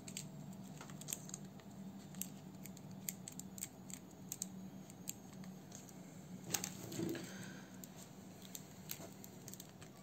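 Rolled honeycomb wax-sheet candles handled: faint scattered clicks and taps as they are picked up and gathered against each other, with a slightly louder knock and rub about six and a half seconds in. A faint low hum runs underneath.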